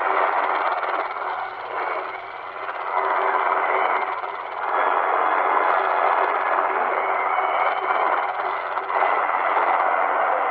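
The Chinese 'Firedrake' jammer's signal on 9970 kHz shortwave, jamming Radio Free Asia, heard through an XHDATA D-219 portable radio's speaker. It is a dense hissing noise with a steady low tone in it, dipping in strength a couple of times and swelling back.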